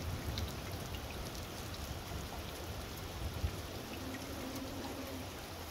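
Heavy rain falling steadily, a dense hiss of drops with scattered individual taps.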